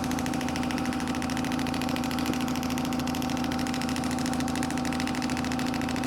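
Radial shockwave therapy device firing a rapid, even train of clicking pulses over a steady hum.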